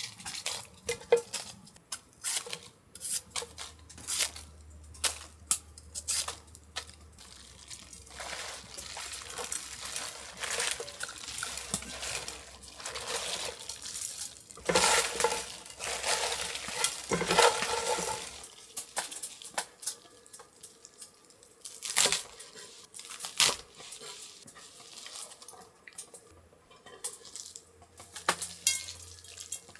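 Cooking and food preparation with utensils and dishes: irregular clinks and knocks, with longer stretches of stirring or mixing in the middle.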